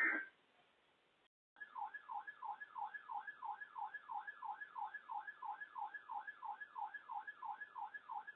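Electronic emergency-alert attention tone: falling sweeps repeating about three times a second, starting after a brief electronic burst and a second of silence. It marks the start of a new alert message.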